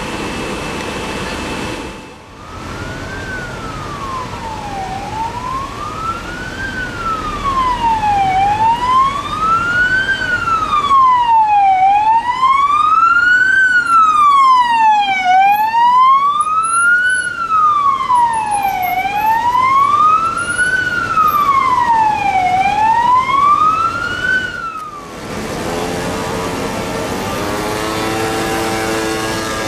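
Emergency vehicle siren on a slow wail, its pitch sweeping up and down about every four seconds and growing louder as it approaches. It cuts off suddenly near the end and is followed by other vehicle noise.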